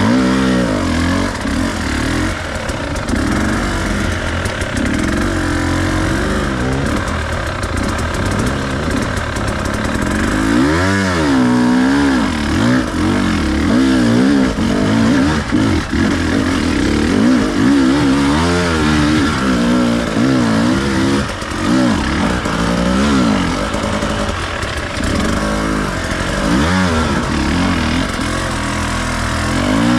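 Enduro dirt bike engine running under constant throttle changes, its pitch rising and falling over and over as the rider works through off-road terrain, with sharp blips of revs.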